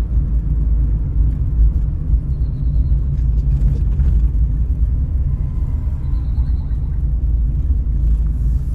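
Steady low rumble of a car driving, engine and tyre noise heard from inside the moving car.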